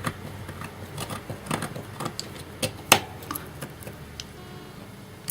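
Scattered light clicks and taps as a small stripboard track-cutting tool and the boards are handled on a workbench, the sharpest tap about three seconds in.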